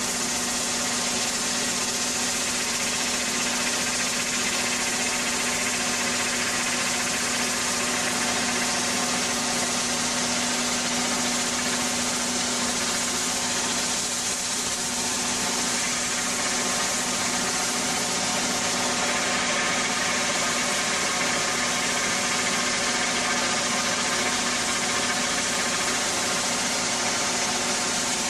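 Ultra-high-pressure water jet blasting old paint off steel plate: a steady hiss of the jet over the even, engine-like drone of the high-pressure pump unit.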